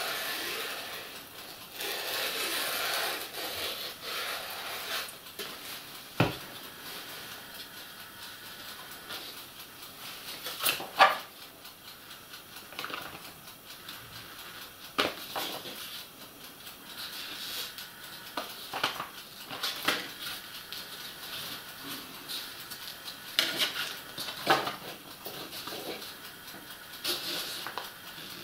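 Close-up handling of foam board: white glue squeezed and spluttering from a plastic bottle at first, then foam pieces pressed, slid and rubbed into place, with scattered sharp knocks and scrapes.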